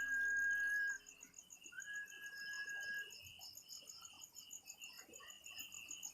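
Night insects, crickets, chirping in a steady pulsing chorus. A high, steady whistle-like tone is held for about a second at the start, then sounds again for about another second.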